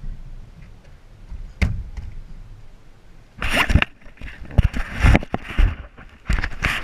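Low wind rumble on the microphone, a single knock about a second and a half in, then from about halfway a run of loud, irregular rubbing and knocking bursts as the action camera is handled and jostled.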